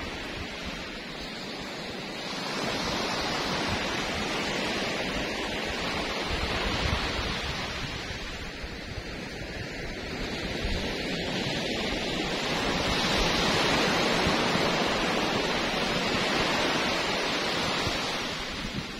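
Small waves breaking on a sand beach, the surf washing up the shore and swelling and fading in two long surges, the second one louder.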